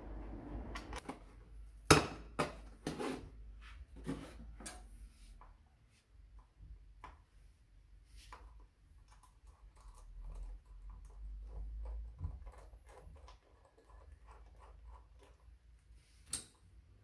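An Allen key and small steel bolts clicking and tapping against the Triumph Bonneville's aluminium clutch cover as its cover bolts are undone. There are a few sharp knocks in the first five seconds, then a run of light ticks, and one more sharp click near the end.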